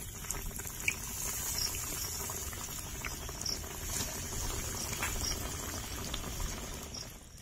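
Coated chicken cutlets frying in hot oil in a kadai: a steady sizzle with scattered small pops.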